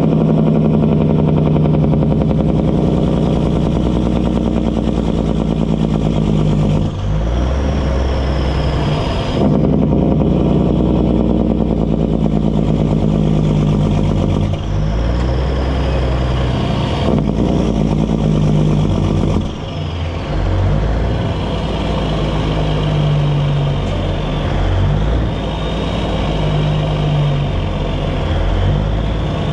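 Kenworth semi's diesel engine running under load, pulling a lowboy with a bulldozer on it. Its note breaks and changes several times as the driver shifts gears, and a turbo whistle falls in pitch at some of the shifts.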